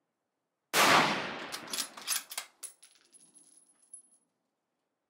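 One rifle shot from a Savage 110 Storm in 6.5 Creedmoor, a sudden loud crack under a second in that rings off the range shed as it dies away. A few shorter sharp cracks follow over the next second and a half.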